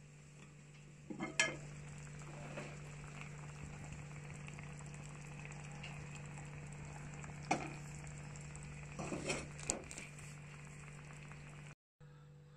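Udon hot pot simmering in a ceramic donabe: a steady bubbling hiss over a constant low hum, with a few sharp clinks against the pot, one soon after the start and several more in the second half.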